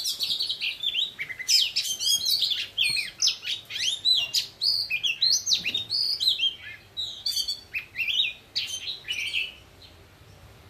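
Female oriental magpie-robins singing against each other: a fast, varied stream of whistled phrases and chirps sweeping up and down in pitch, thinning out and dropping in level near the end.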